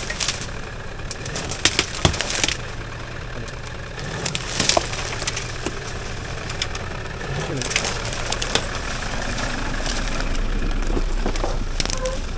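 A vehicle's engine running steadily, with clicks and rattles over it.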